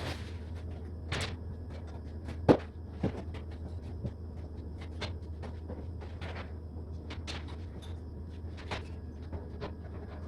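Scattered knocks, taps and clatters of handwork, with one sharp knock about two and a half seconds in, over a steady low hum.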